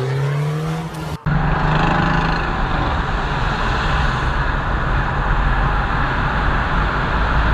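A car engine accelerating, its pitch rising steadily, cut off abruptly about a second in; then steady road noise and engine rumble from a moving car.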